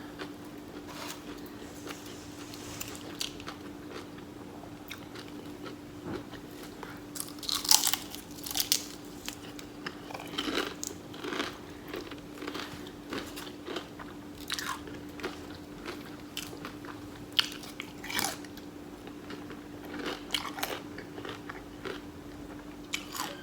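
A person chewing and biting food close to the microphone, with irregular mouth clicks, smacks and crunches. A steady faint hum runs underneath.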